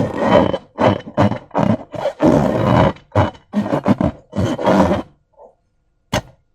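Slime being squeezed and kneaded, squelching in loud, irregular bursts for about five seconds, then a single sharp click about six seconds in.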